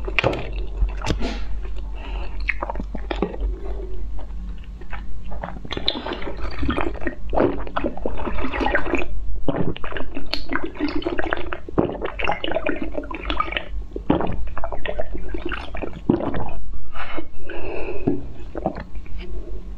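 A person eating and drinking: wet chewing, squishing and slurping, with many sharp mouth clicks.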